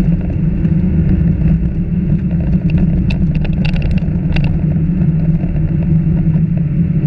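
Car driving on a gravel road, heard from inside the cabin: a steady low engine and tyre rumble, with a few sharp clicks and ticks between about three and four and a half seconds in.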